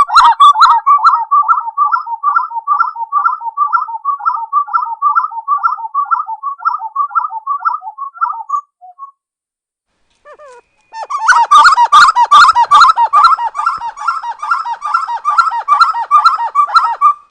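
Spot-winged wood-quail (uru) singing: a rapid, rhythmic run of repeated low whistled notes. It stops about nine seconds in, then resumes about two seconds later, louder and denser.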